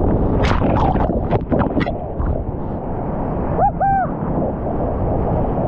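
Whitewater rapids rushing on a river running at high water, a loud, steady wash of noise. A few sharp splashes come in the first two seconds, and a brief two-note call sounds a little past halfway.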